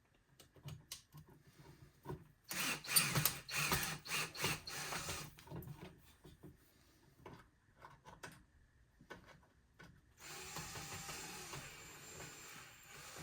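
Small parts of an electric melting furnace being handled and unfastened: scattered clicks and rattles, busiest from about two and a half to five and a half seconds in. About ten seconds in, a power tool starts running steadily.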